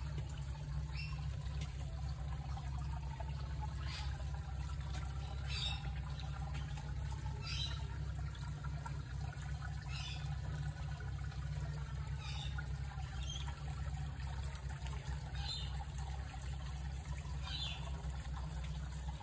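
Shallow floodwater running and trickling steadily over a concrete path and into a drain grate.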